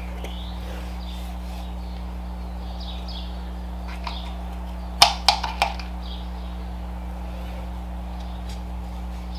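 Steady low hum with faint bird chirps. About five seconds in, a quick cluster of three or four sharp clicks from handling the tire and rim during the tire change.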